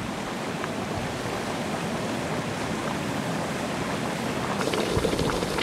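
Geothermal steam vent hissing and rushing steadily. Near the end the sound changes to hot mud gurgling with small pops.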